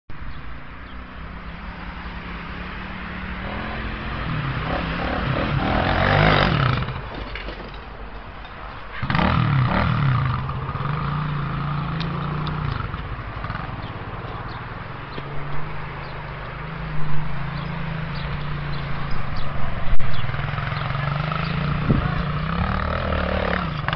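ATV engine running and being revved, climbing to loud revs about six seconds in and again at about nine seconds, then running more steadily. A few short sharp knocks stand out in the second half.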